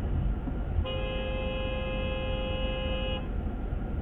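A vehicle horn gives one steady, held honk of a little over two seconds, starting about a second in, over a continuous low rumble of engine and road noise.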